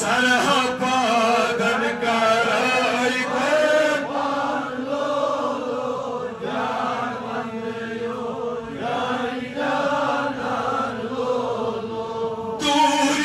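Male voice chanting a Kashmiri naat, a Sufi devotional poem in praise of the Prophet, in a slow melodic recitation over a steady held low note.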